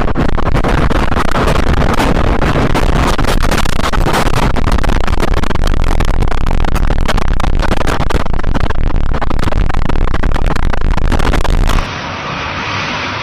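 Hurricane wind blowing hard against the microphone, loud and even, with constant crackling and thumping buffets. Near the end it cuts abruptly to a quieter, thinner wind noise.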